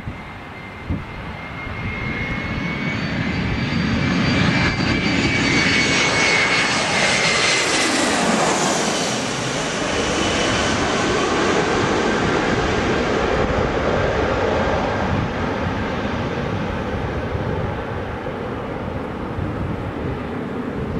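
Airbus A321's twin CFM56 turbofan engines on landing approach, passing low overhead. The high whine and rushing jet noise swell, the whine drops in pitch as the jet goes by about eight seconds in, then the noise settles to a steady, slowly fading sound as it moves away.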